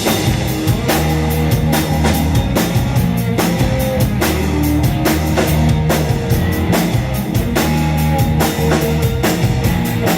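Instrumental break of a rock song: drum kit keeping a steady beat under bass and guitar, with no singing.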